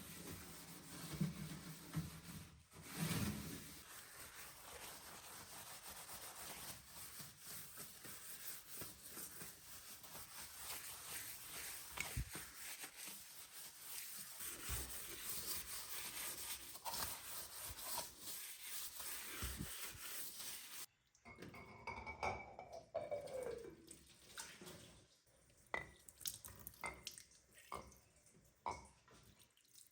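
Tap water running into a kitchen sink as a steady hiss, cutting off suddenly about two-thirds of the way through, followed by scattered light clicks and knocks.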